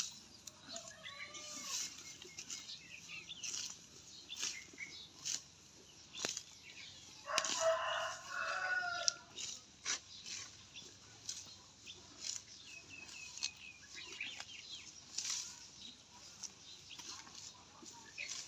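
A zebu cow grazing, cropping and tearing roadside grass in short rips about once a second. Birds call around it, and a louder call lasting about a second and a half comes about seven seconds in.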